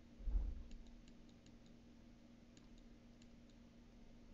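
Faint, irregular light clicks, several a second, made while handwriting is written onto the screen with a digital pen. A dull low thump sounds about a third of a second in, over a faint steady hum.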